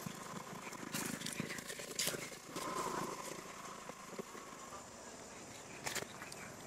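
Dry leaf litter crackling a few times, sharply, as macaques move over it: about a second in, around two seconds, and once more near the end.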